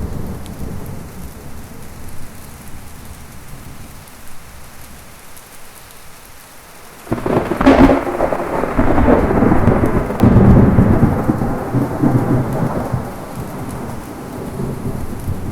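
Heavy rain with thunder: steady rain hiss and a fading distant rumble, then about halfway through a sudden close thunderclap that rolls on for several seconds before dying back down under the rain.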